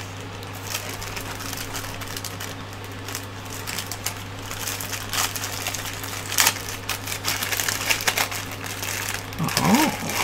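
Clear plastic packaging bag crinkling and rustling irregularly as hands handle and open it.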